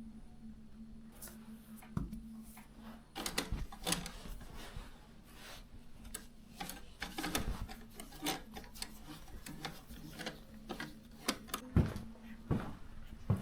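Irregular clicks and knocks, a few louder thumps among them, over a steady low hum.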